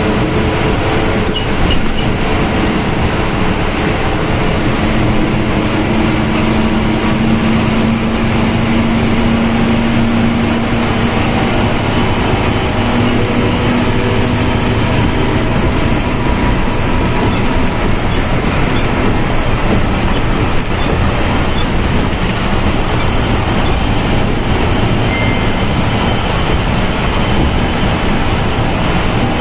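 Volkswagen Volksbus 17.230 OD bus under way, heard from inside the cabin: a steady drone of engine and road noise. Over it runs the transmission's growl, a tone that climbs slightly in pitch through the first half.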